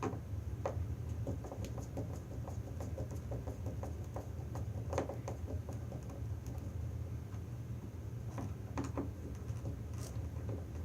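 Small clicks and scratches of hands working stripped Cat5 wires into a small screw-terminal video adapter, over a steady low hum.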